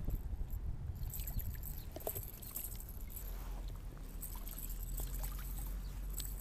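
A small hooked fish splashing at the surface in shallow water at the bank, with light water sounds over a steady low rumble.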